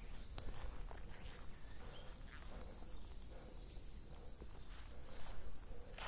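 Steady, high-pitched trilling of crickets and other autumn insects, with a few soft footsteps on a leaf-strewn dirt trail. The steps grow a little louder near the end.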